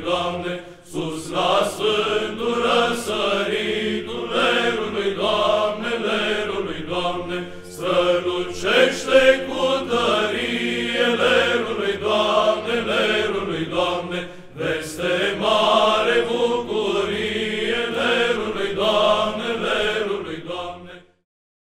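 Male Byzantine-style psaltic choir chanting in unison over a low sustained drone (ison), with a brief break about two thirds of the way through. The singing cuts off shortly before the end.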